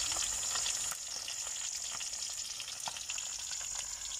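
A fish frying in hot oil in a wok: a steady sizzle with scattered small pops and crackles.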